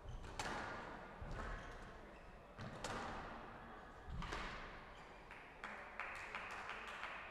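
Squash rally: a few sharp cracks of the squash ball off racquet and court walls, about one every second and a half, each ringing on in the hall.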